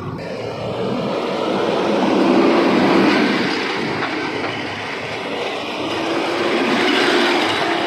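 Heavy diesel machinery engine running hard, its level swelling twice as it revs up under load.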